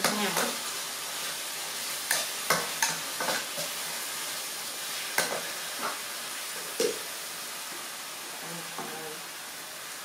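Beef sizzling in a steel wok, with a metal spatula scraping and clinking against the pan as it is stirred. The sharp clinks come every second or so through the first seven seconds, then thin out, leaving the steady sizzle.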